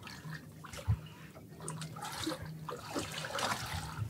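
Seawater lapping and splashing against the side of a small fishing boat, in uneven bursts, with a low knock about a second in.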